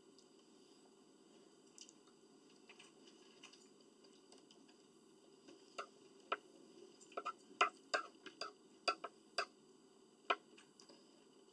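Faint eating sounds: about a dozen short, sharp clicks and taps, bunched together in the second half, as utensils and mouth work through breakfast.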